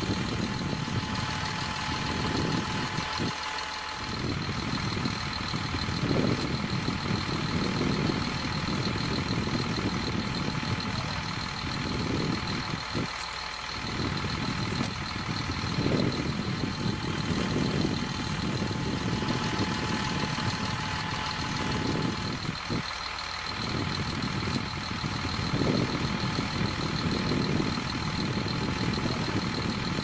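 Heavy truck engines rumbling unevenly, under a steady high-pitched whine. The low rumble drops out briefly about three times.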